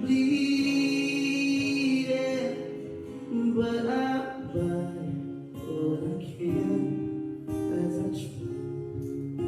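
A song: a voice singing long, held notes over guitar.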